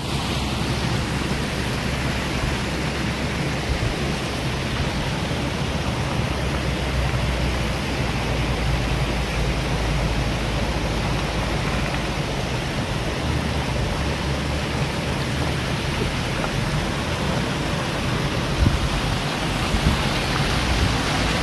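A steady rushing noise over a low, even hum, as from a small car's engine running.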